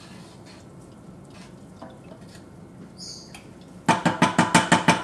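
A metal utensil clattering rapidly against a metal pot, about eight ringing strikes a second, starting about four seconds in. Before that there is only faint kitchen noise.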